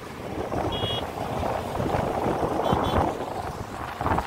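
Wind buffeting the microphone over the running noise of a motorcycle riding along a road, with a couple of brief high beeps about a second in and near three seconds.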